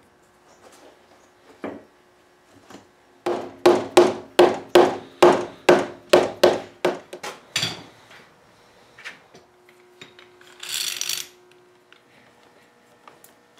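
A run of about a dozen sharp knocks on the teak chair frame, about three a second, each with a short ringing tone: the glued joints being knocked home during assembly. A short rasping scrape follows a few seconds later.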